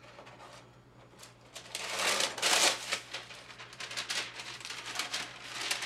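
Sheets of pop-up parchment paper rustling and crinkling as they are pulled from their box and laid over a foil pan, loudest about two to three seconds in.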